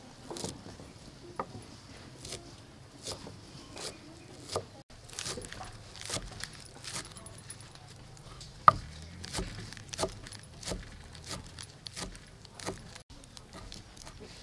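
Kitchen knife chopping green onions on a thick round wooden chopping block: a run of sharp, unevenly spaced knocks of the blade on the wood, one much louder than the rest a little past the middle.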